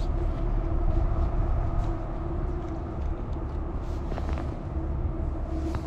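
A steady mechanical drone holding one constant pitch over a low rumble, like a motor running at an even speed.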